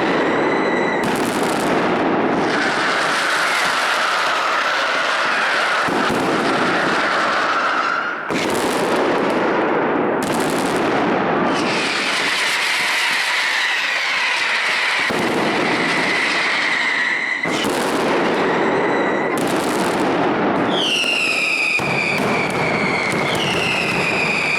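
A dense, continuous barrage of fireworks with whistling pyrotechnics sounding over it. Near the end, several whistles in a row each fall in pitch.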